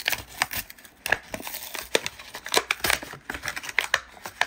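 Clear plastic blister pack being pried and peeled off a toy car's cardboard backing card, crackling and crinkling in a quick run of sharp, irregular clicks.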